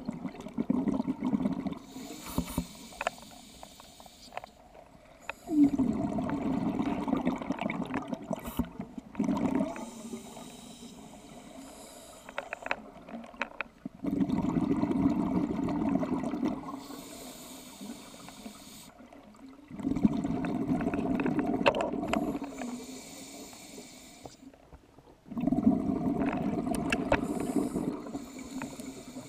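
Scuba diver breathing underwater through a regulator: a hiss on each inhale, then a few seconds of bubbling exhaust, the exhale bubbles being the loudest part. The cycle repeats about every six seconds.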